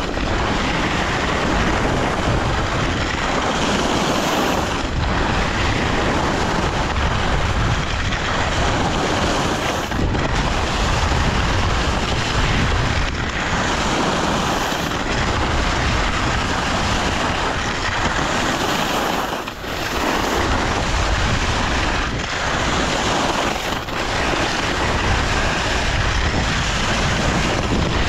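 Loud, steady rush of wind on the microphone during a downhill ski run, with skis running over the snow underneath; it dips briefly a few times.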